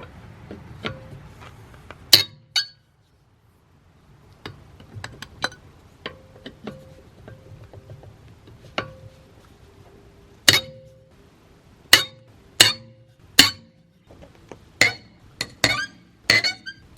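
A series of sharp, irregularly spaced metallic clinks and knocks of hand tools, some ringing briefly, coming thicker and louder in the second half.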